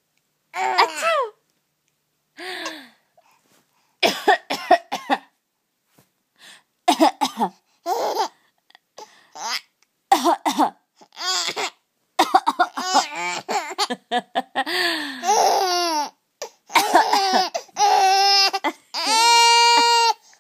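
Repeated short coughs and a baby's giggling laughter, coming thicker and faster in the second half, with a long, high-pitched held squeal near the end.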